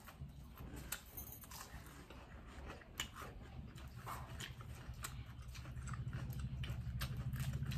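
Eating sounds from a noodle and raw-vegetable salad eaten by hand: scattered crisp bites, chewing and mouth clicks, over a low steady hum that grows louder in the second half.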